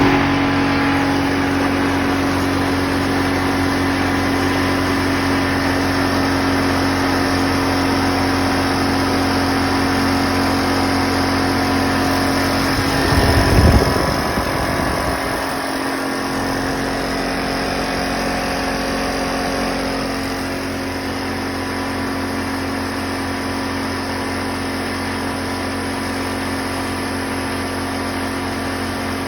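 High-pressure breathing-air compressor running steadily, with a brief louder low rumble about thirteen seconds in.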